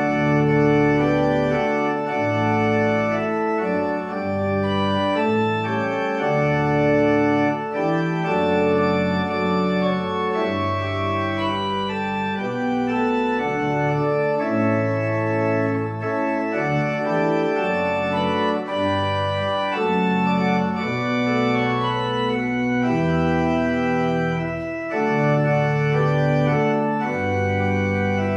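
Organ playing a slow piece in full, sustained chords, the harmony changing every second or so.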